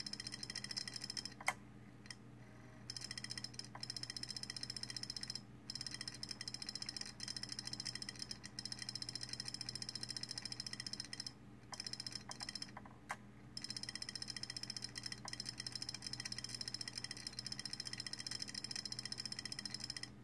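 Failing 2.5-inch SATA laptop hard drive running in a docking station: long runs of rapid mechanical ticking and clicking, broken now and then by brief pauses, with one sharper click about a second and a half in, over a steady low hum.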